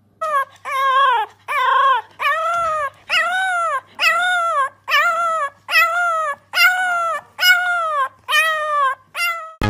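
French bulldog puppy howling: about a dozen drawn-out cries in a row, each rising and then falling in pitch, roughly one a second.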